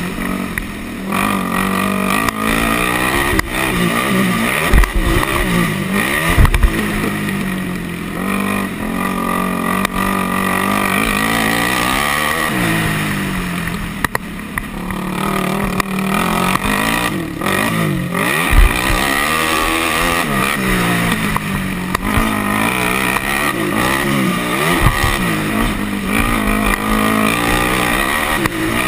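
Yamaha sport quad's single-cylinder four-stroke engine revving hard and falling back again and again as it is ridden fast through the gears, with wind rushing over the microphone. A few sharp thumps stand out, about five, six and a half and eighteen seconds in.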